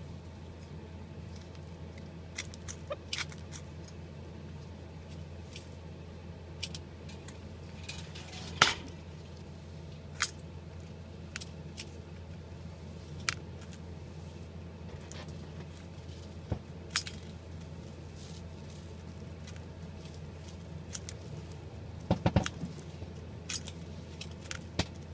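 Scattered light clicks and taps from Barbary doves moving about in a wire cage and straw nest, over a steady low hum. A quick run of louder knocks comes near the end, as the white parent dove settles over its squabs.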